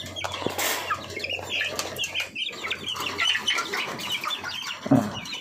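A flock of chickens at their feed: wings flapping and rustling, with many short high-pitched peeps and clucks.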